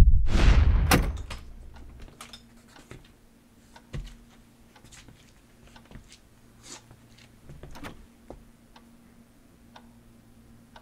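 A loud swelling whoosh ending in a low boom, a transition sound effect, that dies away by about two seconds in. Then a quiet room with a faint steady hum and scattered small clicks and knocks.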